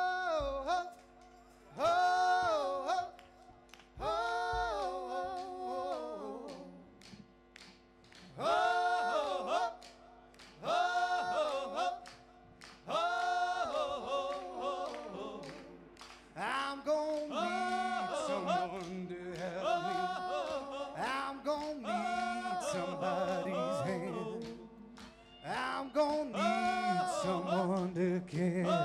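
Live folk band playing a song: voices singing in short phrases with pauses between them over a held backing chord, the sound filling out into continuous singing and playing from about halfway through.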